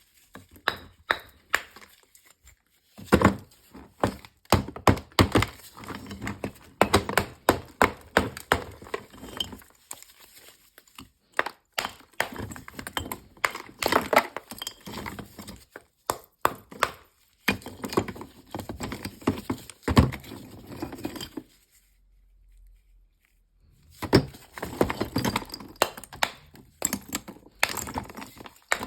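Hard Akbulak edible chalk being bitten and chewed: a run of loud, crisp crunches and cracks, with a pause of about two seconds roughly three-quarters of the way through.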